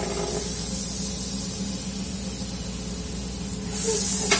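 Butter sizzling as it melts in a hot aluminium stockpot: a steady hiss that grows louder shortly before the end as a slotted metal spatula pushes the butter around. A short clink of the spatula on the pot comes near the end.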